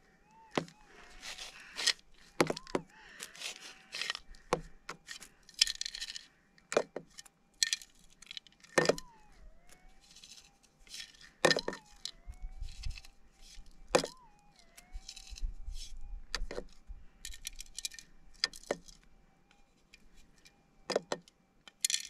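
Metal detector's steady threshold hum, rising briefly in pitch several times as handfuls of dirt are passed over the coil to isolate a target, which turns out to be a tiny gold nugget. Gravel and stones scrape and rattle in a plastic scoop throughout.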